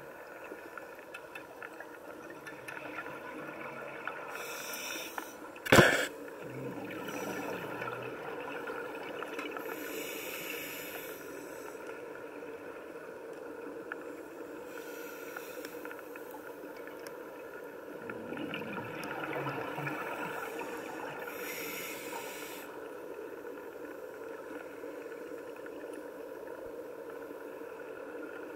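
Underwater sound at a scuba dive: a steady underwater drone, with hissing bursts of a diver's exhaled regulator bubbles about every five to six seconds. A single sharp knock about six seconds in is the loudest sound.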